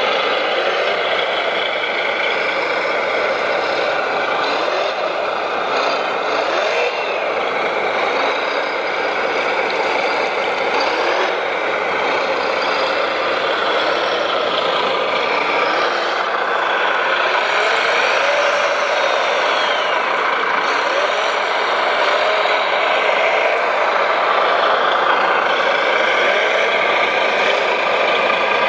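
Scale RC construction machines running on their electric motors, a dense whine whose pitch rises and falls again and again as they drive and work.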